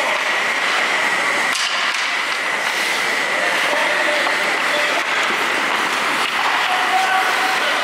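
Youth ice hockey play in an echoing rink: skate blades scraping and carving on the ice with sticks on the puck, a sharp knock about one and a half seconds in, and children's voices calling out now and then.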